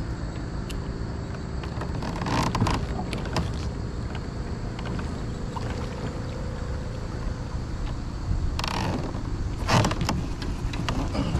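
Steady low rumble of wind on the microphone out on open water, with brief louder whooshes about two and a half seconds in and again near the end.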